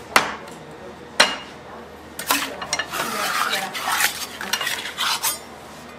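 Steel bars knocking on a stainless steel table, two sharp clanks in the first second or so, followed by a run of metal scraping and rubbing on the steel surface.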